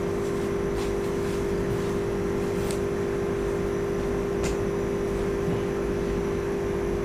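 Steady mechanical hum with one constant tone throughout, with a few faint clicks as a fabric fishing-rod bag is handled.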